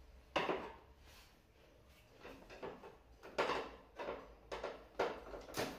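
Plastic casing of a Samsung split air conditioner's indoor unit being handled and unclipped: one clatter about half a second in, then a run of short knocks and clicks from about three seconds on.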